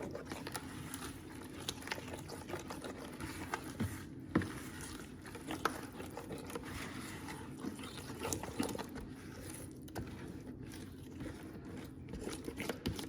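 Yogurt-and-spice marinade being stirred into a thick paste in a bowl: soft wet scraping with many small clicks, on and off.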